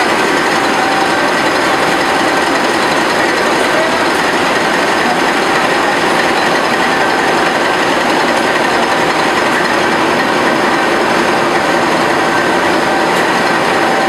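Loud, steady noise of a tugboat's diesel engine room with its engines running, a continuous mechanical din with a couple of steady whining tones through it.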